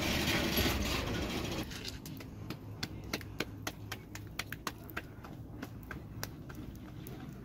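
Wood fire under a flat griddle stone crackling, with many sharp, irregular snaps, from about two seconds in. Before that comes a dense rubbing hiss as a hand wipes the hot stone.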